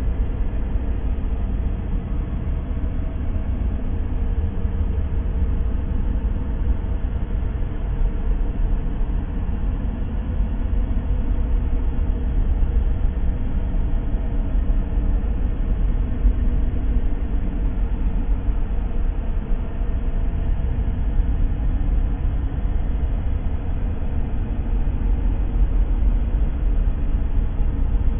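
Steady relaxation noise: an even, unchanging hiss weighted heavily toward the low end, so that it sounds like a deep rumble.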